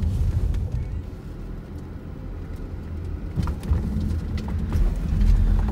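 Car running, heard from inside the cabin: a steady low rumble, with a few short clicks in the second half.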